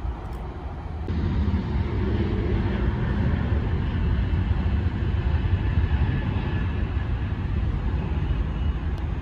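Jet airliner engines on the runway: a steady rumble with a faint high whine, louder from about a second in.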